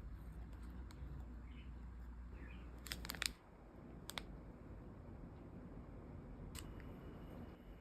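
A quick run of sharp clicks about three seconds in, then two more single clicks a little later, over a faint low hum that drops away just after the first clicks.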